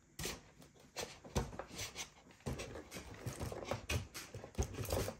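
Scattered clicks, taps and light knocks of hands handling the foam and plastic cockpit parts of an RC model airplane, coming irregularly several times a second.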